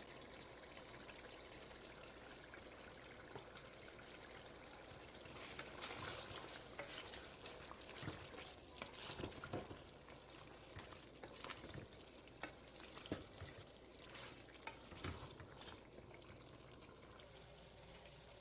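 Chicken and ginger-garlic paste frying in oil in a cooking pot: a soft, steady sizzle. From about five seconds in, a spoon scrapes and knocks irregularly against the pot as the mixture is stirred.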